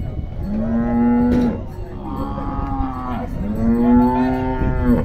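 Cattle mooing: three long, loud moos one after another.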